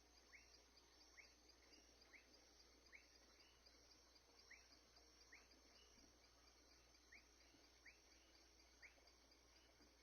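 Faint night ambience: a steady high-pitched insect trill, with a short, slightly falling animal call repeating about once a second, nine times in all, ending about a second before the close.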